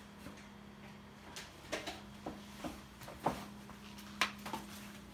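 Small things being handled on a workbench: a string of sharp, irregular clicks and knocks starting about a second and a half in and stopping just before the end, over a steady low hum.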